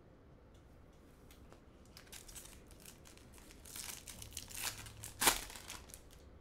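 Foil wrapper of a trading-card pack being torn open and crinkled by hand, starting about two seconds in, with the loudest crackle near the end.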